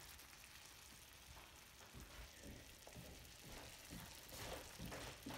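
Sliced mushrooms frying in a pan, a faint steady sizzle, with a few soft knocks in the second half.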